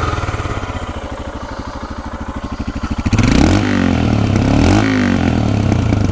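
Royal Enfield Himalayan's single-cylinder engine running through a Devil Evo slip-on exhaust with the dB killer fitted. It runs with an even, low thump for about three seconds, then is revved hard to full RPM and held there with a brief dip, dropping back near the end.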